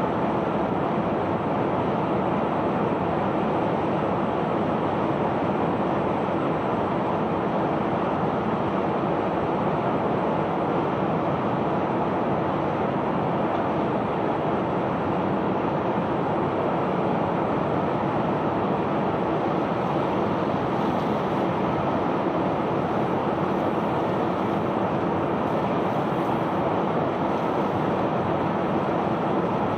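Steady, unbroken rushing rumble of a self-unloading sand barge discharging its cargo: the unloading machinery running and sand pouring.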